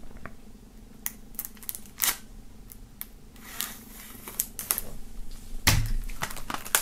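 Knife blade clicking and scraping along the edge of a plastic CD jewel case as it slits the shrink-wrap, in scattered sharp clicks, with a louder knock near the end as the case is handled.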